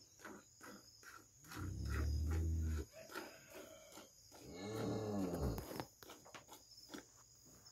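Cow mooing twice: a low, flat moo about one and a half seconds in, then a longer moo that rises and falls in pitch.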